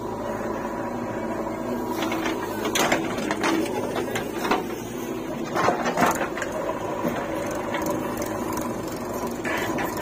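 JCB 3DX backhoe loader's diesel engine running steadily as its bucket digs into soil. Knocks and scrapes from the bucket and falling earth stand out about two, three and six seconds in.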